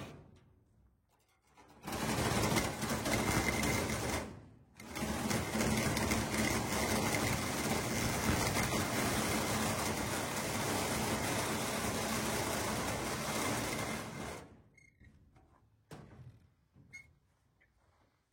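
A power saw cutting, in two runs: a short one starting about two seconds in, then after a brief pause a longer one of about ten seconds. It stops with a few light knocks afterward.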